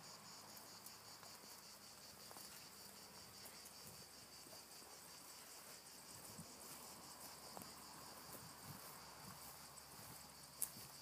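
Faint, steady chorus of insects shrilling in the grove, a rapid pulsing buzz. A few soft low thumps come later on, and a single sharp click near the end.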